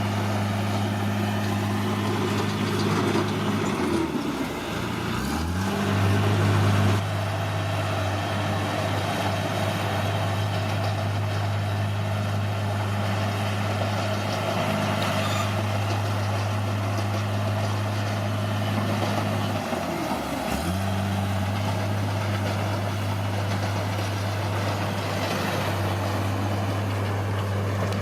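Bulldozer's diesel engine running steadily, its pitch sagging and climbing back twice, about four seconds in and again around twenty seconds in.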